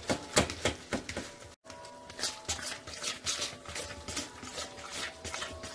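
A fork stirring peanut butter cookie dough in a bowl, a quick, irregular run of scraping taps against the bowl.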